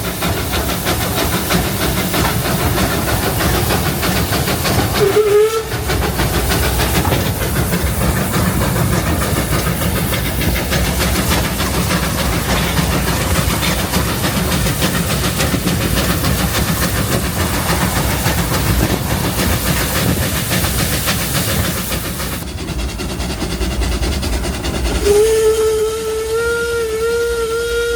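Narrow-gauge steam locomotive working hard up a gradient, its exhaust chuffing over the rumble of the train on the rails. A short whistle toot about 5 s in, then a long steam whistle blast from about 25 s on.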